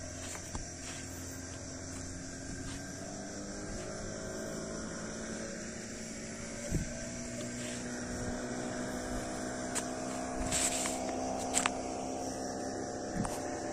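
A distant motor drones steadily with an even, layered hum that slowly rises in pitch. A constant high chirring of crickets runs underneath, with a few faint clicks.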